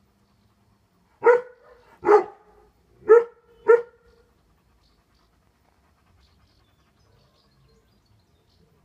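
Dog barking four times in quick succession, the barks under a second apart.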